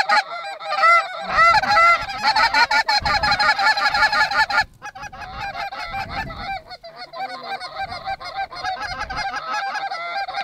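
A large flock of geese honking continuously, many calls overlapping, as they fly over and come down to land in the field. About halfway through the calling drops abruptly, then carries on a little quieter.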